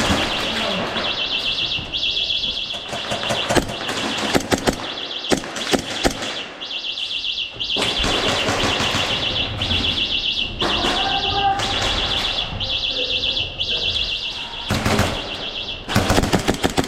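A high electronic buzzer tone pulsing rapidly runs in long stretches with short breaks, the beeping of an activated airsoft bomb prop. Over it come sharp cracks of airsoft guns firing in short bursts, a cluster a few seconds in and the loudest burst near the end.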